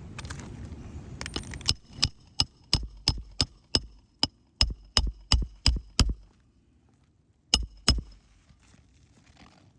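Hammer driving new roofing nails into a replacement asphalt shingle. About a dozen quick strikes come at roughly three a second, each with a short metallic ring, then a pause and two more blows near the end.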